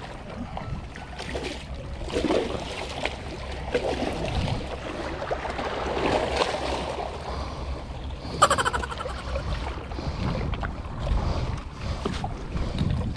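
Water splashing and churning as a hooked Asian seabass (siakap) thrashes hard at the line, in uneven surges. A short sharp rattle comes about eight and a half seconds in.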